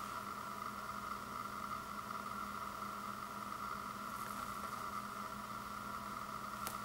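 Steady background hiss with a constant mid-pitched whine and a low hum. Near the end comes a faint click from the shrink-wrapped stack of CD cases being handled.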